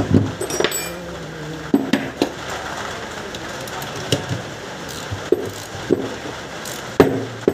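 Steel spanner and socket clinking and knocking against a car starter motor as its through-bolts are undone: a scattered series of short metal clicks and taps.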